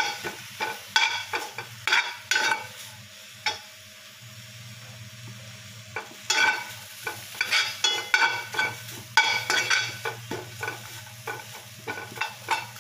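Metal spoon scraping and clicking against an aluminium karai while stirring small dried fish (shutki) being dry-roasted before the oil goes in. It comes as quick, irregular strokes with a short lull a few seconds in, over a steady low hum.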